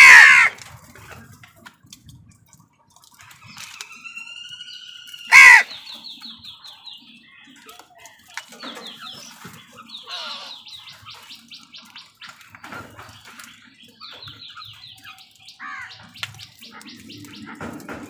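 House crows at a food bowl, giving two loud harsh caws, one at the start and one about five and a half seconds in. Between and after them come quieter bird calls: an arching whistled note and several bursts of rapid high chattering.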